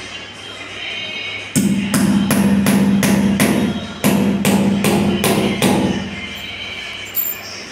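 Hammer blows driving plastic wall plugs into holes in the floor, in two runs of quick strikes about three a second: one run starting about a second and a half in, the other about four seconds in. Music plays underneath.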